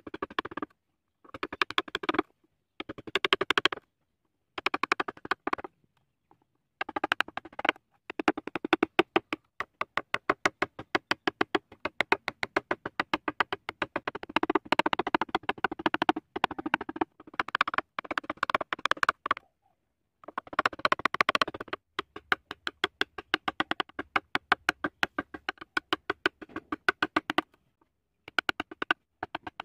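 Wood-carving chisel cutting along the outline of a carved wooden flower: runs of quick sharp taps, several a second, broken by short pauses.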